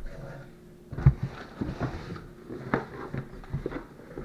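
Packaging being handled on a wooden table: a dull thump about a second in, then scattered light knocks and the rustle of a stiff paper or cardboard sheet being lifted out.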